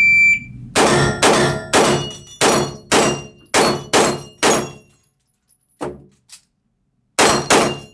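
A shot timer's start beep, then a pistol fired rapidly at steel plates: eight shots in about four seconds, each echoing in the indoor range. After a pause there is a single knock, then two more quick shots near the end.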